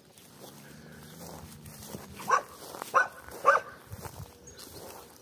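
A dog barking three times in quick succession, starting a couple of seconds in.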